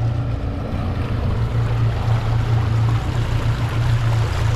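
New twin Suzuki DF200 outboard motors running with the boat under way: a steady low engine drone under the rush of water and wind.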